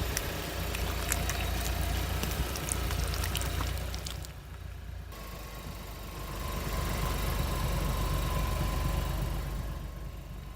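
Car engine running at idle, a steady low rumble, with a few faint crackles during the first few seconds.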